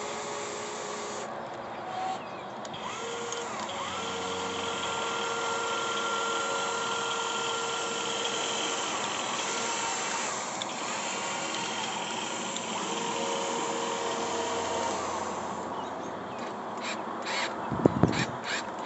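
Radio-controlled excavator working: its motors and hydraulic pump whine steadily, the pitch stepping and gliding as the controls are worked, over a constant mechanical hiss. A few short knocks or scrapes come near the end.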